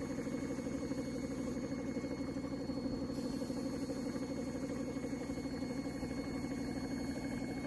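A small motor runs steadily with a fast, even, pulsing drone, from the equipment used to spray paint onto a cabinet.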